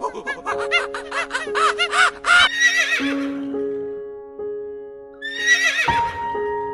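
A horse whinnying: one long, quavering whinny, then a second shorter one near the end, over background music with held notes.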